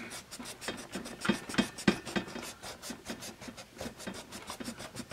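The pink rubber eraser on the end of a wooden #2 pencil rubbed rapidly back and forth over graphite writing on paper, a dry scrubbing rasp of several strokes a second.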